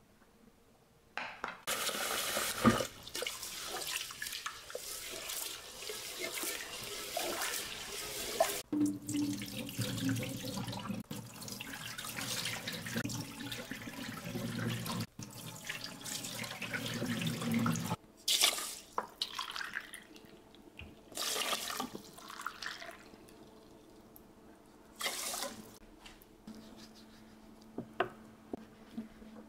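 Kitchen tap running into a stainless steel sink as rice is rinsed in a pot, with the cloudy rinse water poured off into the sink; near the end come a few short knife taps on a wooden cutting board.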